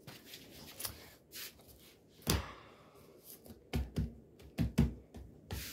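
A few scattered soft thumps and taps: the loudest about two seconds in, then a cluster of them about a second later. The sound of a phone being handled and moved while it records.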